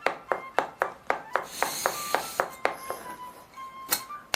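A quick, even series of sharp taps, about four a second, that stops after about two and a half seconds; a single louder tap follows near the end. Faint music tones sound underneath.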